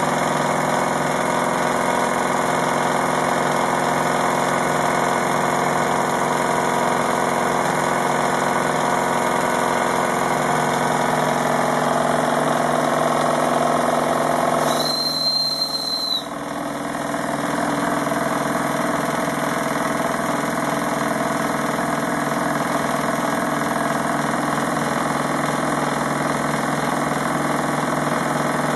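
Wilesco D16 toy steam engine running steadily under steam. About halfway through, the boiler's steam whistle is blown once for just over a second, a single high steady tone.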